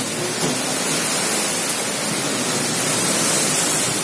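Heavy tropical downpour driven by strong wind: a loud, steady rushing hiss of rain.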